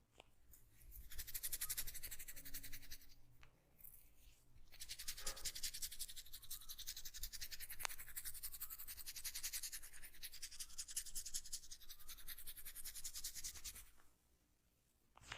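Fast, even scratching as hands rub vigorously through oiled hair and scalp in a head massage. It comes in two long stretches with a short break about four seconds in, and stops about a second before the end.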